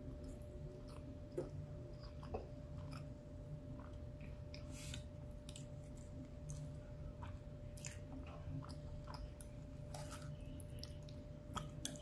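Close-up chewing and mouth sounds of a person eating rice and beans, with scattered short clicks of a fork scooping food from a plate.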